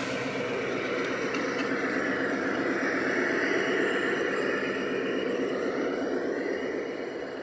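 G-scale model diesel locomotives pulling a long grain train, a steady engine-like running sound that swells slightly and eases off near the end.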